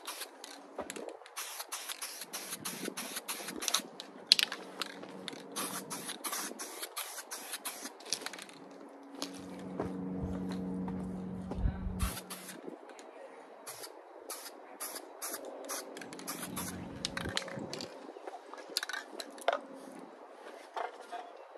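Aerosol spray can hissing in many short bursts as it is sprayed in quick passes, with a pause near the middle. A low hum swells and fades during the pause.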